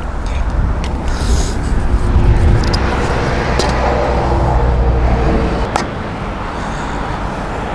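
Strong wind buffeting the microphone in uneven gusts as a low rumble, which drops away about two-thirds of the way through. A few sharp knocks of wood being handled are heard over it.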